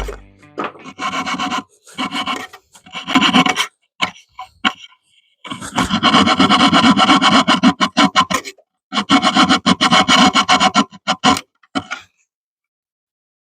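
Hand saw cutting through a wooden board in bouts of back-and-forth strokes, with short pauses between bouts.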